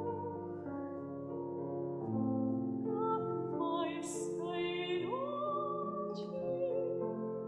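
A singer in a classical, operatic style holds long, slow notes with vibrato over sustained instrumental chords; the voice rises to a higher held note about five seconds in.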